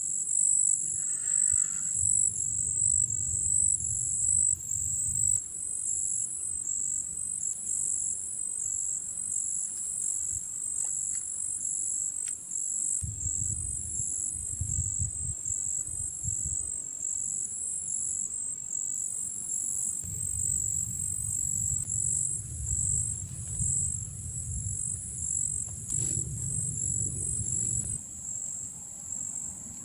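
Insects chirping in a continuous, evenly pulsing high-pitched chorus, with a low rumble coming and going underneath.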